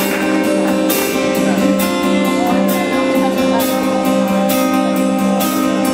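Live band playing an instrumental intro led by a strummed acoustic guitar, over a steady held chord, with an accent about once a second.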